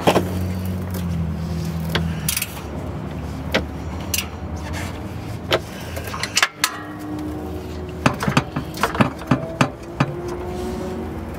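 Sharp metallic clicks and clinks of a hand wrench working the bolts on a car's exhaust downpipe, scattered at first and coming quickly one after another near the end, over a steady low hum.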